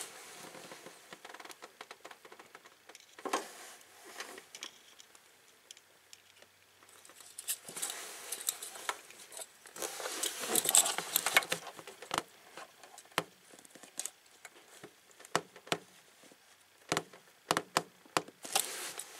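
Solder and flux sizzling and crackling as a soldering gun heats a wire splice, in bursts, loudest in the middle, with a few sharp clicks toward the end as the wires are handled.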